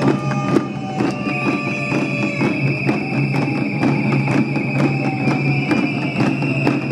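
Many hand-held frame drums beaten together in a walking procession, a dense continuous beat with steady held tones sounding over it.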